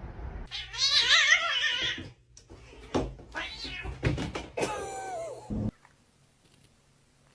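A cat yowling in a long wavering call, then a few shorter meows, the last one falling in pitch. The calls stop about two-thirds of the way through.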